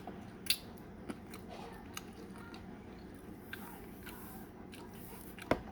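Close-up eating sounds of a boiled balut duck egg: soft chewing with a few sharp clicks, the loudest near the end.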